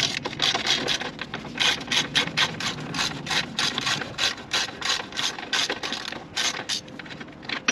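Hand socket ratchet clicking as it backs out the engine undershield bolts: quick runs of sharp clicks, several a second, with brief pauses between strokes.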